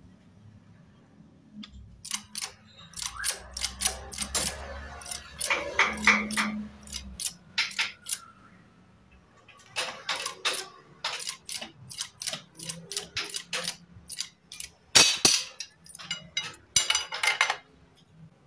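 Metal tools and motorcycle engine parts clinking and knocking: irregular sharp clicks and taps in two spells with a short pause around the middle, a low hum under the first spell.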